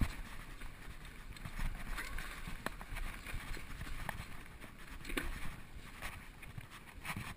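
2012 Specialized SX Trail mountain bike riding down dry dirt singletrack: tyres rolling over dirt and rocks under a steady low rumble, with scattered sharp clicks and clatters from the bike.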